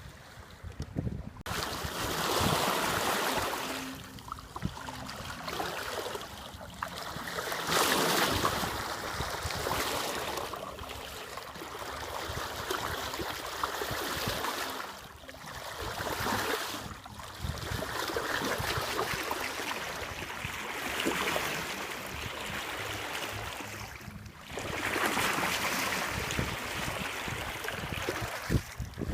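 Water rushing and splashing along a sailboat's hull under sail, with wind on the microphone, swelling and fading every few seconds.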